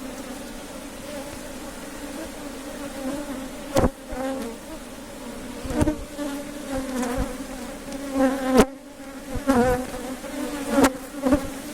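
Africanized honeybees buzzing around an open hive during a frame inspection: a steady hum that wavers in pitch. About four sharp knocks cut through it, the loudest about two thirds of the way through.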